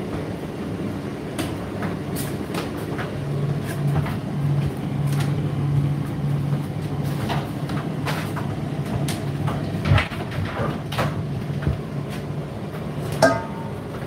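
Indesit IDC8T3 condenser tumble dryer running mid-cycle: a steady motor hum with irregular clicks and knocks as the load turns in the drum, and one louder knock near the end.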